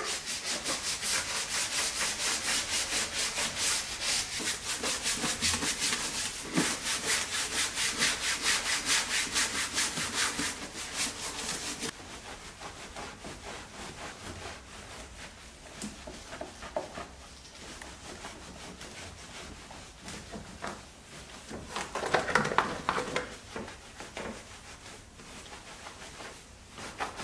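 Brush scrubbing the wet, soapy surfaces of a car's engine bay in quick back-and-forth strokes, about four a second. About halfway through the scrubbing turns quieter and less even, with a louder spell near the end.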